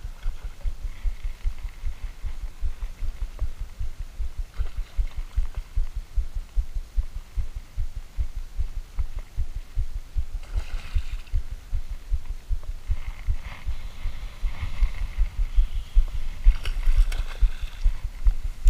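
Wind buffeting the camera's microphone: a loud, irregular low rumble that grows stronger near the end, with a few short higher-pitched noises about ten seconds in and in the last few seconds.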